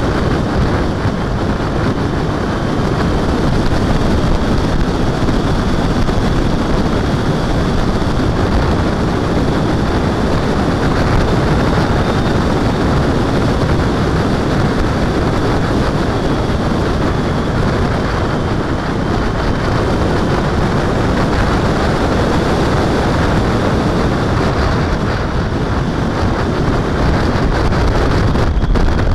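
Wind rushing over the microphone of a camera mounted on a moving motorcycle, with the motorcycle's engine and road noise running underneath at cruising speed. The rush stays steady throughout.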